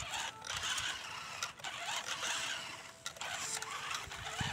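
Toy RC rock crawler's small electric motor and plastic gearbox whirring under load as it crawls along towing a trailer with another RC truck on it, easing briefly about three seconds in.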